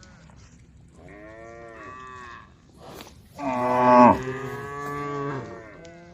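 Cows mooing: one moo about a second in, then a louder, longer moo from about three and a half seconds, with another starting near the end.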